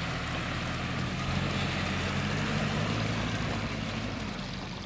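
Mitsubishi Pajero engine running steadily at low revs as the SUV creeps through a shallow river crossing, its wheels splashing and churning the water, with a rushing of water throughout. The engine hum eases off slightly near the end.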